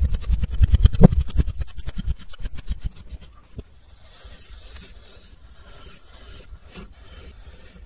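Kinetic sand being worked with a black plastic stamping tool: a fast run of low thumps for about three seconds, then soft crunching and scraping as the tool is pushed into the sand and cuts out a cylinder.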